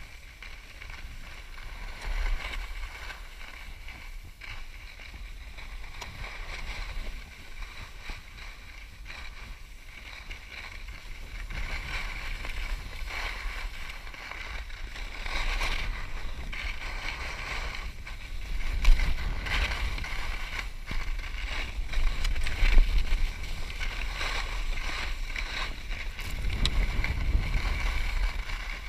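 Skis sliding and scraping over hard-packed snow on a downhill run, a continuous rushing hiss with wind rumbling on the camera microphone, growing louder through the second half as speed builds, with a few brief louder scrapes.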